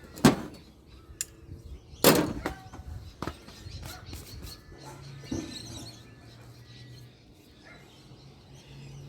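Sharp knocks from scrap brass being worked: two loud ones, one just after the start and one about two seconds in, then a few lighter taps. A low hum runs through the second half, and birds chirp faintly in the background.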